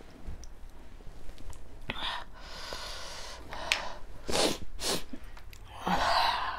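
A person huffing sharp breaths out through an open mouth while eating, about five breathy puffs, the longest and loudest near the end. It is the sign of a mouth burning from a hot momo.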